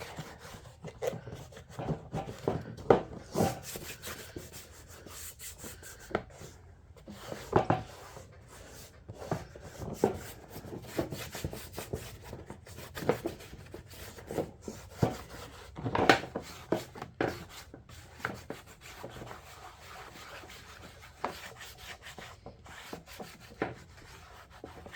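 Fingers rubbing Armor All protectant into the plastic of a lawn tractor's grass discharge chute: irregular rubbing strokes of uneven loudness.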